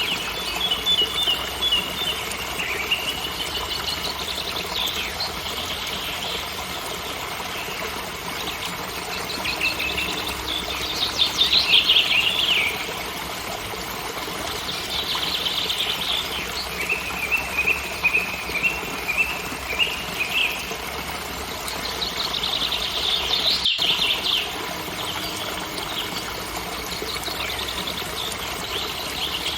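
Steady rush of a forest waterfall, with a small bird trilling again and again over it in rapid series of notes, each about one to three seconds long.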